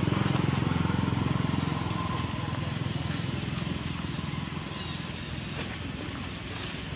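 A small motorbike engine running, a steady low drone with a fast pulse, loudest in the first couple of seconds and then fading away.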